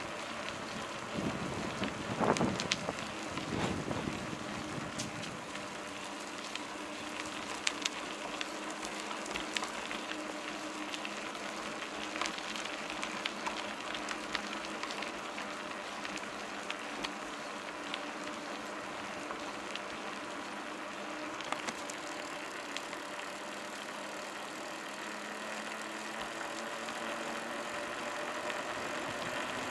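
Bicycle rolling on asphalt: steady tyre and wind noise with scattered light clicks and rattles. A van passes going the other way about two seconds in.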